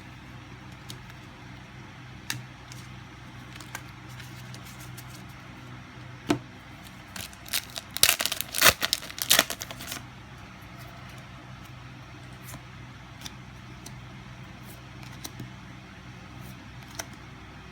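Foil trading-card booster-pack wrapper crinkling and tearing for about two seconds in the middle, with scattered light clicks of cards being handled before and after, over a steady low hum.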